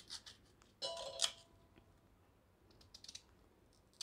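Small knife cutting through a raw green mango, faint crisp clicks as it slices the firm flesh. About a second in comes a short cluster of clicks with a brief clink that rings for a moment, and a few lighter clicks follow later.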